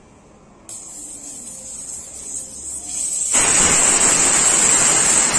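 Air hissing out of a motorcycle tyre's valve as the tyre is let down. A thin hiss starts under a second in, then about three seconds in it turns into a much louder, full rush of air.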